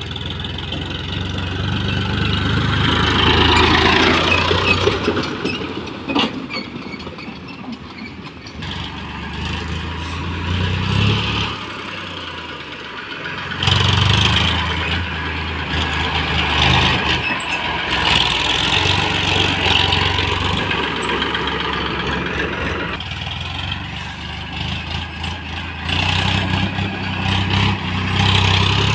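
Massey Ferguson tractor's diesel engine running as it pulls a loaded trolley, getting louder over the first few seconds as it approaches. The engine sound changes abruptly several times where short clips are joined.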